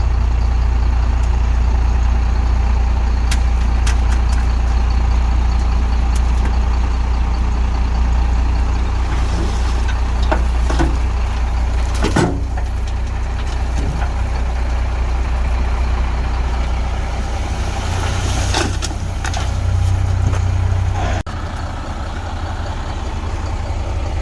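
International DT466 inline-six diesel engine of a dump truck running steadily, with a few knocks and clatters. The engine sound drops suddenly near the end.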